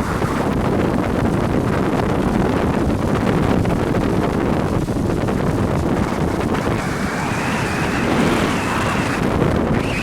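Heavy wind buffeting the microphone over the steady running and water noise of a Yamaha jet ski under way. About six seconds in, a higher whine rises in pitch and holds until near the end.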